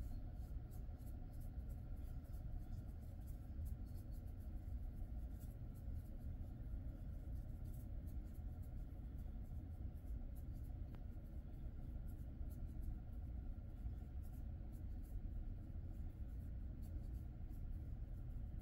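Fingers scratching and rubbing through a Jindo dog's coat, a faint, irregular scratchy rustle over a steady low room hum.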